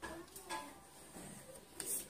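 A few faint clicks and taps of a hand tool working at a pipe and wire connection. The sharpest comes about half a second in, and another just before the end.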